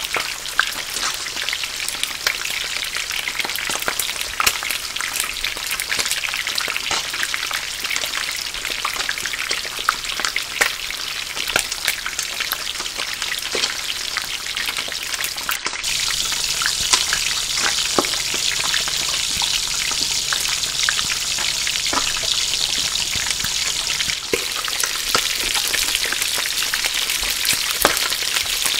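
French fries deep-frying in hot oil: a steady sizzle thick with small pops and crackles. About halfway through it breaks off for an instant, then carries on a little brighter.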